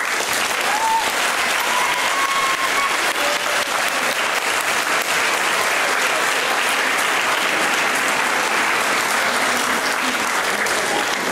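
Audience applauding: dense, steady clapping from a crowd of many hands.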